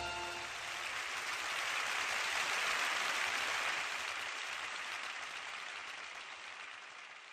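Applause that swells and then slowly fades away.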